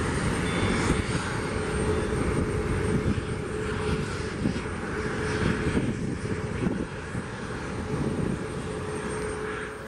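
Airbus A320neo's twin jet engines at takeoff power as the airliner climbs out, a steady jet rumble with a faint steady whine, easing slightly toward the end.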